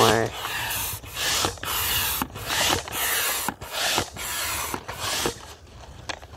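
Hand air pump being worked in quick, regular strokes, each stroke a rushing whoosh of air pushed through a hose into an inflatable kayak's chamber. The strokes stop near the end.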